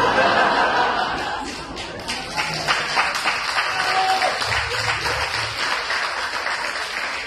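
A large audience laughing and cheering, then breaking into applause about two seconds in; the clapping carries on and slowly dies down.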